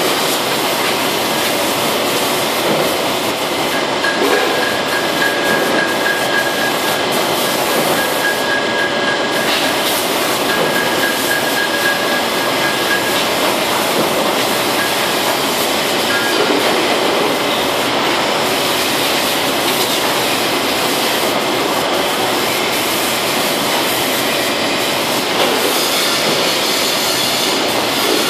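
Steady, loud rushing hiss of a compressed-air paint spray gun and spray-booth extraction running without a break while safe panels are sprayed, with a thin high whistle from about four to sixteen seconds in.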